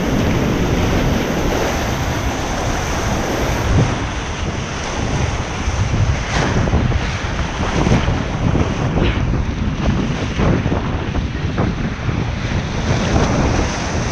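Whitewater rapids rushing close by, a loud, steady wash of river water, with short splashes against the inflatable kayak from about six seconds in. Wind buffets the microphone.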